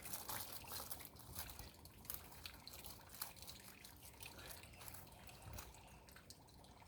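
Faint, irregular scraping and ticking of a hand tool digging into mulch-covered soil to make a planting hole.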